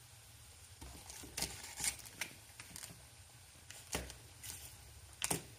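A block of butter in its foil-paper wrapper being cut with a knife: scattered crinkles of the wrapper and light taps of the blade. The loudest come about four seconds in and again near the end.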